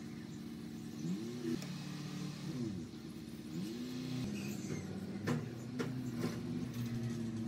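An engine running in the background, its pitch rising and falling several times as it revs, with a few sharp clicks about five to six seconds in.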